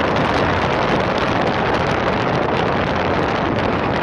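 Steady wind rushing over the microphone on the open deck of a moving tour boat, over the boat's running engine and the rush of its wash.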